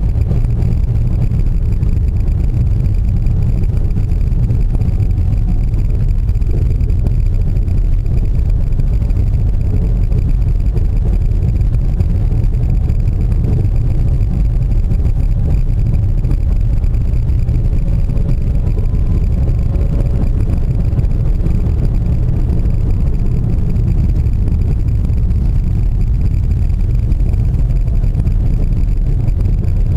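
Car driving along a narrow hill road, heard from inside the cabin: a steady low engine and road rumble, with the engine note wavering a little around the middle.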